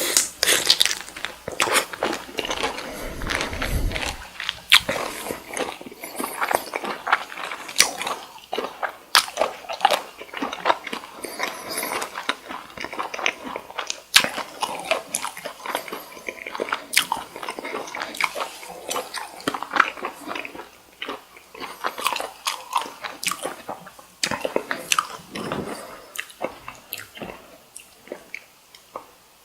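Close-miked chewing of cooked cocktail shrimp: a dense run of wet bites, smacks and mouth clicks, thinning out near the end. There is a low bump about three seconds in.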